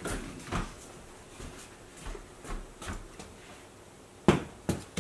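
Scattered light knocks and taps on a hardwood floor, then two sharp, louder knocks about half a second apart near the end.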